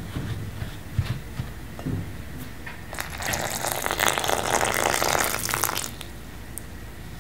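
Milk poured in a thin stream into a glass bowl of green-tea flour mixture, a steady pour starting about three seconds in and lasting about three seconds. Before it, a few light taps and scrapes of a spatula mixing the dry flour in the bowl.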